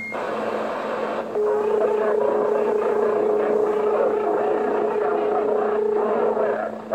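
CB radio receiving a strong signal through its speaker: a noisy, garbled transmission with a steady hum, and a single steady tone that starts about a second and a half in and stops shortly before the end.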